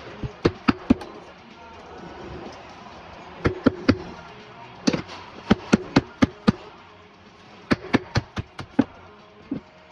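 Sharp metal-on-metal hammer blows on a tool held against a car's outer CV joint, struck in quick runs of three to six at about four a second, each with a short ring.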